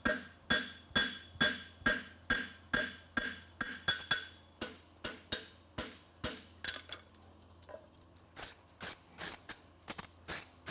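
Hand hammer striking a hot steel horseshoe on an anvil while it is forged to shape: about two blows a second with a bright metallic ring for the first four seconds, then less regular, duller blows with a short pause a little before the end.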